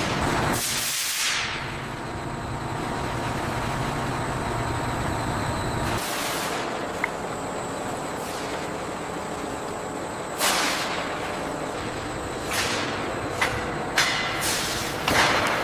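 Factory ambience: a steady machinery noise broken by several short hissing bursts of released air, each falling in pitch. The loudest comes about a second in, and more follow in the second half.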